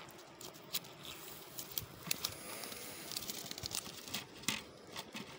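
Nylon mesh fish keepnet rustling and crinkling as it is handled, with scattered small clicks and taps.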